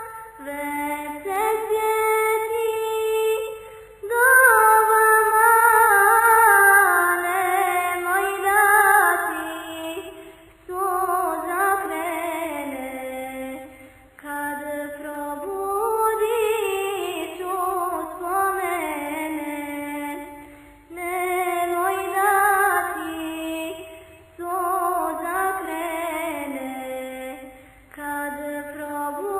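Background music: a single high voice singing a slow melody in phrases a few seconds long, gliding between notes, with little audible accompaniment.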